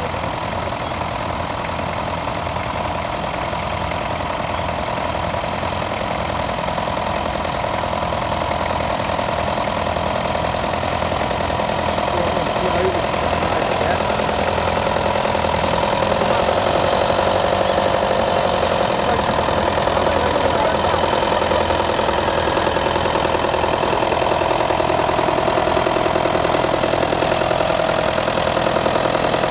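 Tractor engine running steadily while pulling a plough, getting somewhat louder about halfway through.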